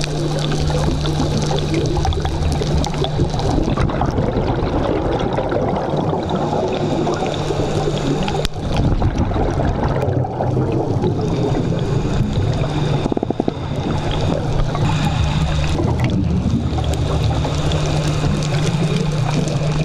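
Underwater sound: gurgling, bubbling water noise over a steady low hum.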